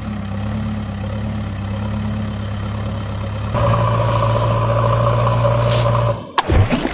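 Truck engine idling steadily. About three and a half seconds in it turns louder, with a higher, more whining tone on top. Near the end it briefly cuts out with a quick sweep, then carries on.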